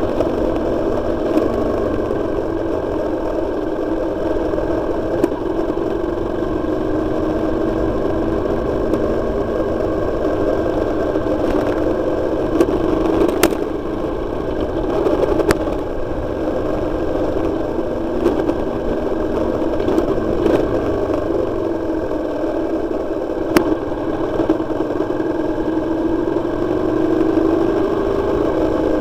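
Motorcycle engine running steadily under way, with a few sharp clicks; the engine note rises a little near the end.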